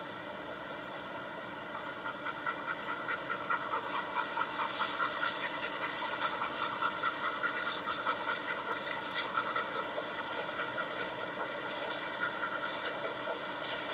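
A dog panting hard in quick, even breaths, about three a second, over a steady hum, heard played back through a television speaker.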